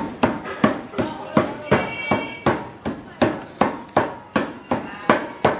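Steady rhythmic pounding of peanut candy with mallets, about three heavy blows a second.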